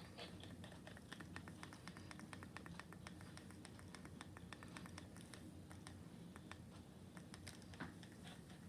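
Faint, rapid small clicks over a low steady hum.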